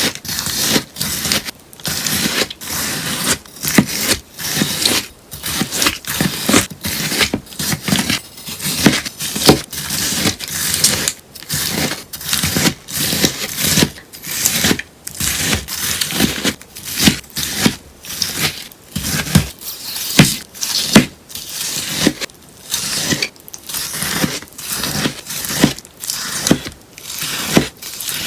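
A sponge being cut over and over, a crisp shaki-shaki crunch with each cut, about one to two cuts a second.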